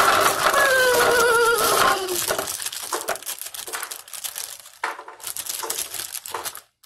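A plastic zip-top bag crinkling as jackfruit seeds are tipped out of it, with the seeds clicking and clattering into a container. A brief high, wavering voice sounds over it in the first two seconds.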